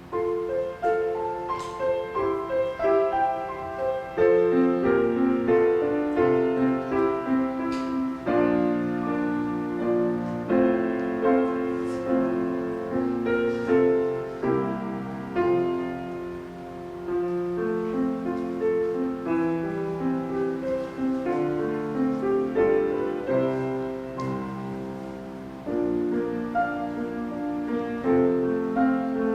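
Solo piano playing a slow, gentle classical-style piece: melody notes over held chords in a steady flow.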